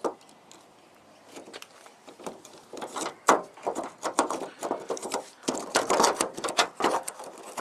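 Irregular clicks and knocks of a Toyota Tarago's front door handle assembly being worked loose inside the door, starting after a quiet second or so, with the loudest knock about three seconds in.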